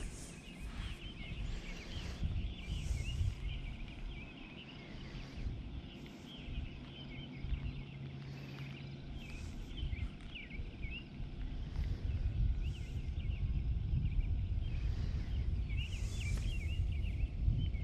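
Many small birds chirping in quick, high calls throughout, over a low rumble that grows louder in the second half.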